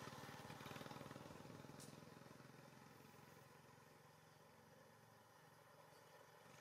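A vehicle's engine fading away into the distance over the first few seconds, then near silence.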